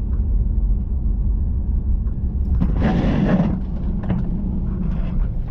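Steady low rumble of a car driving, with a short rough rustle or crunch about three seconds in.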